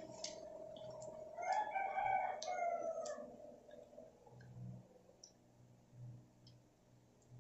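A rooster crows once, about a second and a half in: one long call that dips in pitch at the end. A few light clicks sound around it.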